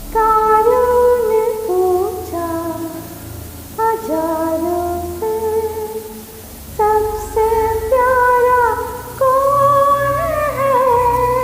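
Background music: a woman singing a slow melody of long held notes that slide between pitches, over a soft accompaniment.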